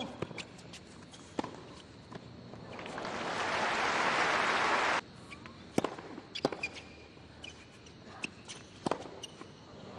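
Tennis ball hit by rackets in rallies: sharp single strikes about a second apart. In the middle, crowd applause swells for a couple of seconds and cuts off suddenly, and then another rally of racket hits follows.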